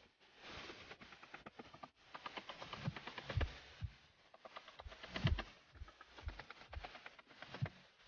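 Hammer tapping and driving nails into wooden formwork battens: a quick run of light taps broken by a few heavier blows, the heaviest about three and a half and five seconds in.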